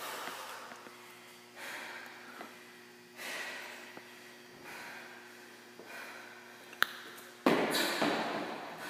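Heavy, winded breathing from hard exercise, a loud exhale about every second and a half. Near the end comes a sharp click, then a sudden loud thud as she kicks up into a handstand and her feet hit the wall.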